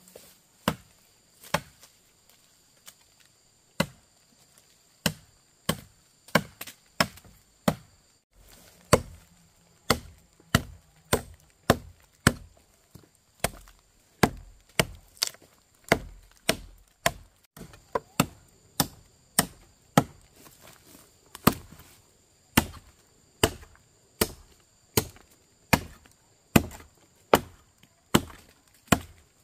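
Firewood being chopped with a blade: sharp, separate chops striking wood in a steady rhythm, about one to two a second.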